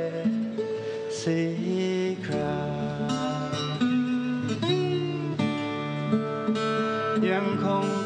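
Live acoustic music: an acoustic guitar plays an instrumental passage of plucked notes.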